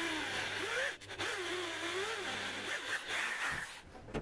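SKIL 600 W corded electric drill boring a 4.3 mm hole into a steel block, enlarging a pilot hole that will be tapped for an M5 thread. The motor's pitch rises and falls as the load changes, breaks off briefly about a second in, and the drill stops shortly before the end.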